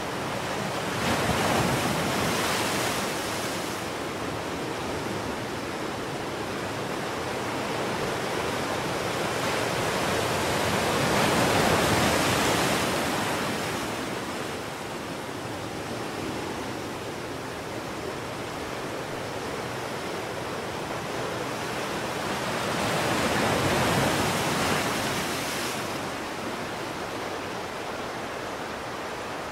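A steady rushing noise that swells louder three times, roughly ten seconds apart, each swell rising and falling over a few seconds.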